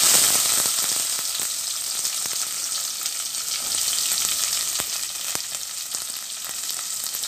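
Chopped shallots dropped into hot oil with spluttered mustard seeds in a kadai. They sizzle loudly at once, then settle into a steady frying hiss with a few sharp ticks.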